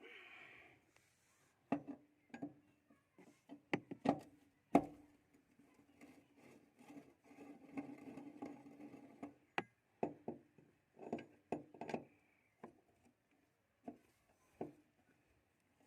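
Wrench clicking and knocking on the 10 mm bolts of a Tata Aria's fuel pump cover as they are undone: a string of sharp, irregular metal clicks, with a stretch of scraping and rattling in the middle.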